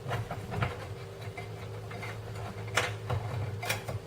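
A few sharp clicks and taps of the light fixture's parts as the glass globe is fitted and its securing nut is turned by hand, two louder ones near the end, over a steady low hum.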